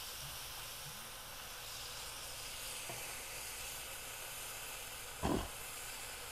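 Sauced chicken drumsticks sizzling on the grate of a Big Green Egg over lump charcoal: a steady hiss as the sauce goes on. A brief, louder sound about five seconds in.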